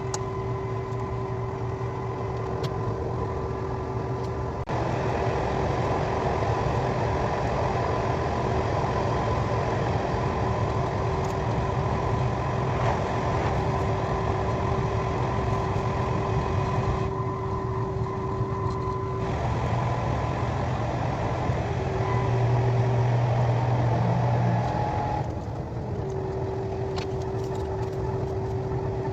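KTX high-speed train running at speed, heard from inside the carriage: a steady rumble and rush with a constant hum and whine over it. The sound jumps abruptly in level and tone a few times, about five seconds in, around seventeen seconds in and again near twenty-five seconds.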